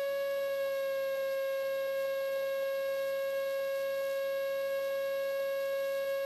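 Steady high whine with a string of overtones in a Robin HR200's cockpit intercom audio during cruise, dipping slightly in pitch about half a second in.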